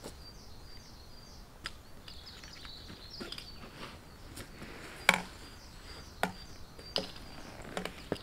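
Footsteps walking downhill on a mountain trail, one step about every second, the heaviest about five seconds in. A bird sings quick runs of short, high, repeated chirps through the first half.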